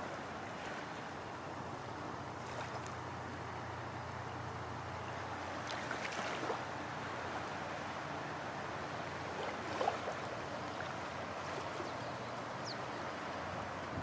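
Steady wash of small waves on a sandy beach, with a low hum underneath. A couple of faint knocks come about six and ten seconds in, and a brief high chirp near the end.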